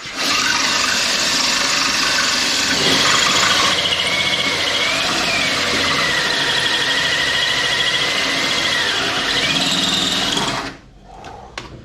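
Electric drill boring into metal under heavy load, with a wavering high-pitched squeal from the bit from about three seconds in; the drill is working hard enough to get hot. It stops near the end.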